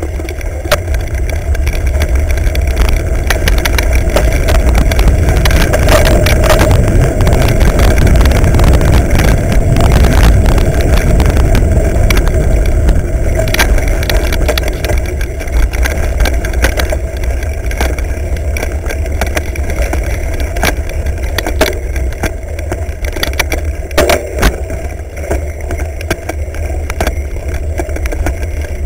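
Wind rumble and road noise on the microphone of a camera riding on a moving mountain bike, with scattered knocks and rattles as it bumps over rough grass singletrack. It is loudest about a third of the way through.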